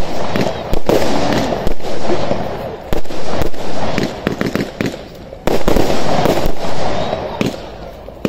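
FAB Fireworks 'Twisted Tails' multi-shot firework firing: a string of loud reports, one every second or two, each dying away, with many smaller pops and crackles between them.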